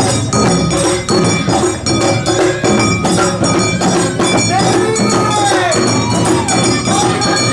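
Lively festival dance music with a quick, steady percussion beat and ringing metal tones.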